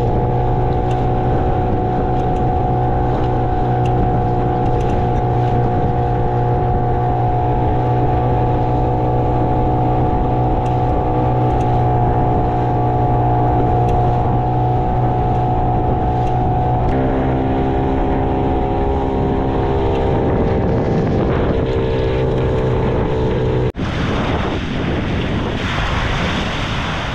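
Hangkai 15 hp outboard motor running steadily, pushing an inflatable boat across open water. About two-thirds through, the engine note drops and wavers as it is throttled back. Near the end it gives way abruptly to waves washing up on a beach.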